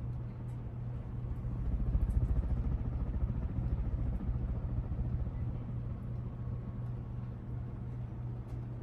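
52-inch Hunter Passport II ceiling fan running on high speed: a steady low motor hum under the rumble of air moving past the blades, growing a little louder about two seconds in.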